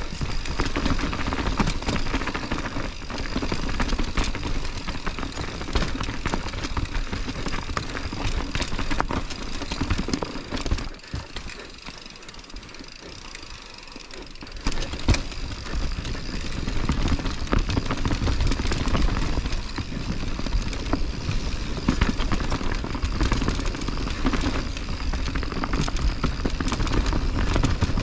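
Mountain bike descending a steep dirt trail: a steady rush of tyre and trail noise with frequent clicks and rattles from the bike. It goes quieter for a few seconds around the middle, then a sharp knock as the noise picks up again.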